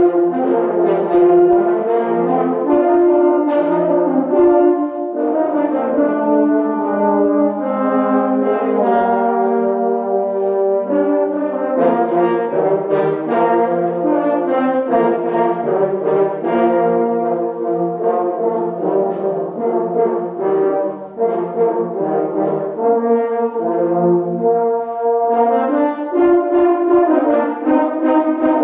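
A small French horn ensemble playing a slow piece in several harmonised parts, the held chords changing about every second.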